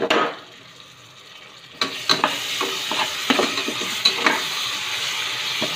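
Ginger-garlic paste, onions and chillies sizzling in hot oil in a pressure cooker, stirred with a metal spatula that scrapes and taps against the pot. The sizzle grows louder about two seconds in, with repeated clicks of the spatula on the metal.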